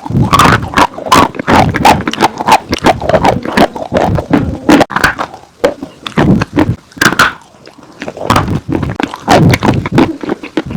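Close-miked chewing of dry chalk and clay: dense runs of sharp crunches, easing off for a moment about six seconds in before picking up again.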